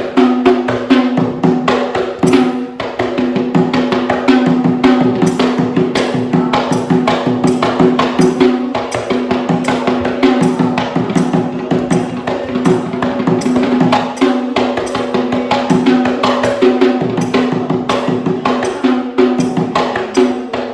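Fast, dense drumming on small rabana frame drums over a steady held tone.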